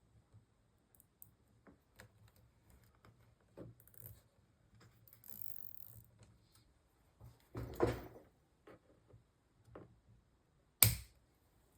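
Small clicks and taps of PC parts being handled and fitted together by hand, with a short scrape, a louder cluster of knocks about eight seconds in and one sharp click near the end.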